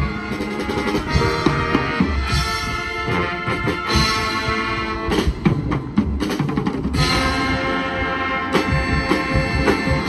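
High school marching band playing: held brass chords over marching drums and bass drum hits.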